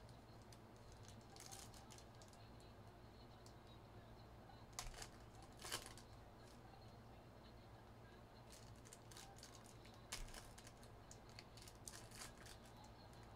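Foil trading-card pack wrappers being torn open and crinkled by hand: faint, scattered short rustles, the loudest two just before five and six seconds in.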